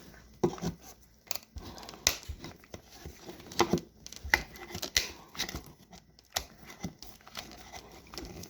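Old vinyl boat-seat upholstery being pulled and cut apart by hand: irregular sharp clicks and rustling of the vinyl.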